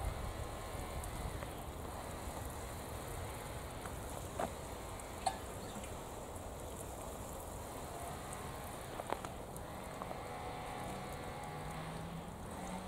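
Water showering from the rose of a metal watering can onto leafy vegetable plants and soil, a steady patter like rain, with a few sharp clicks here and there.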